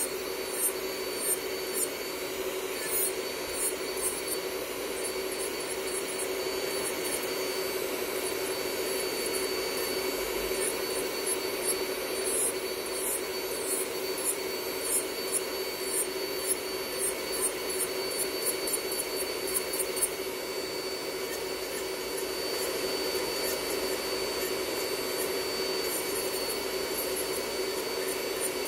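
Electric manicure drill with a ceramic bit running with a steady whine, grinding gel polish off fingernails in irregular scratchy strokes, over the hum of a nail-dust extractor fan. About two-thirds of the way through the grinding strokes mostly stop, leaving the steady whine.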